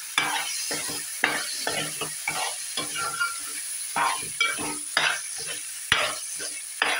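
Metal spoon stirring fresh green pigeon peas and dal in a wet masala in an aluminium pot, scraping against the pot in repeated irregular strokes, more than one a second, over a low sizzle from the pot.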